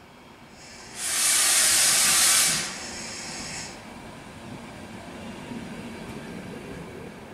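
A loud burst of compressed air hissing from the pneumatic system of an ÖBB double-deck regional train standing at the platform. It starts about a second in, runs for about a second and a half, tails off more quietly for another second, and is followed by a lower, steady hum.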